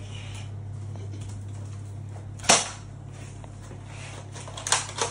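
Toy foam-dart blaster firing with one sharp snap about two and a half seconds in, then a few quieter clacks near the end, over a low steady hum.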